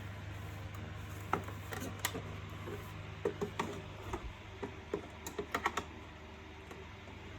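Scattered light plastic clicks and taps, with a quick cluster of clicks a little past the middle, as a vacuum cleaner's plastic covers and parts are handled and unclipped during disassembly. A steady low hum runs underneath.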